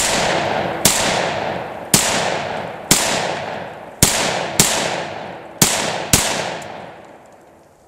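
Eight pistol shots from a Glock 31C in .357 SIG fitted with a standard non-compensated barrel, fired at an uneven pace roughly a second apart, with two quick pairs. Each shot is followed by a long echo that dies away after the last one.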